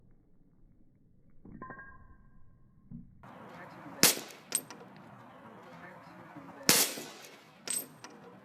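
A 12-gram CO2 cartridge bursting with a sharp bang like a gunshot, followed by a smaller crack. The bang-and-crack pair comes twice, about four and about seven seconds in. A short metallic ring sounds about a second and a half in.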